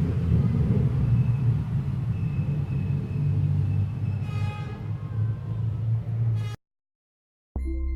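Steady low rumbling background noise, with a brief high-pitched squeak about halfway through. It cuts off abruptly to a second of silence, then music starts near the end.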